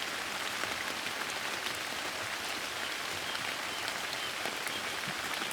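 Steady soft rain falling on a surface, with scattered individual drops. A few faint, short, high bird chirps come about three to four seconds in.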